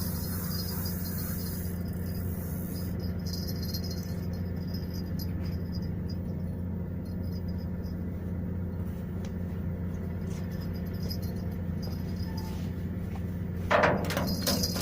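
Steady low engine hum from a boat's motor, with faint rattling over it; a short, louder burst of clatter comes near the end.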